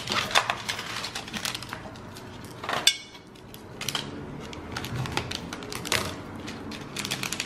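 Foil ingredient sachets crinkling and rustling as they are handled and opened over a metal hot pot bowl: scattered sharp crackles and clicks, with a louder crackle just under three seconds in.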